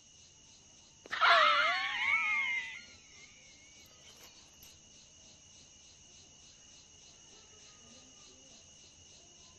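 A loud, wavering scream lasting under two seconds, about a second in, then steady faint cricket chirring.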